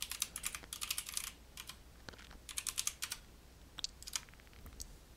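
Typing on a computer keyboard: quick runs of keystrokes for about three seconds, then a few single key presses near four seconds before it stops.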